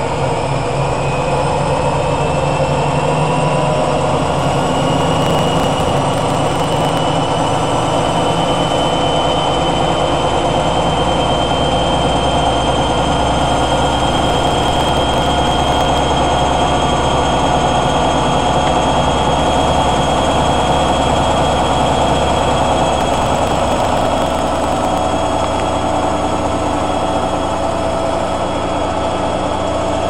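Hoover A8506 washer-dryer on a spin: the drum and motor whine climbs in pitch over the first few seconds, then holds a steady high speed over a low hum.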